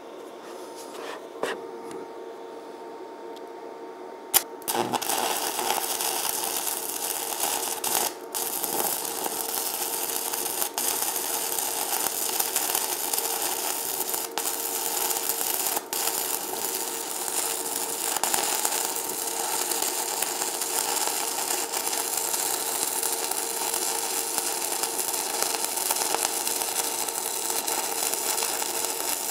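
Stick welding arc from a 1/8-inch E6011 rod run on DC positive. After a few quiet seconds there is a sharp click about four seconds in, and the arc catches and runs as a steady hiss with a few brief dips.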